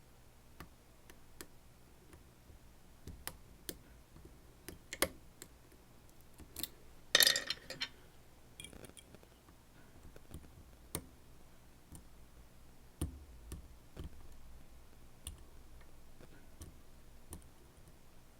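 Lock pick and tension wrench working the pins of a Dom RS8 lock cylinder: scattered light metal clicks, with a louder brief rattling scrape about seven seconds in and a soft knock near thirteen seconds.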